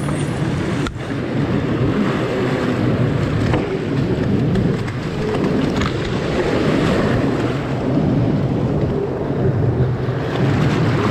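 Stand-up jet ski engine running in the shallow surf as the craft is launched and ridden out, with breaking waves and wind buffeting the microphone.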